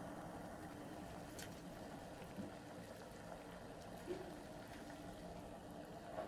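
Water in a saucepan on an electric hot plate coming to the boil: a faint, steady hiss and bubbling with a few soft pops. A light tap near the end.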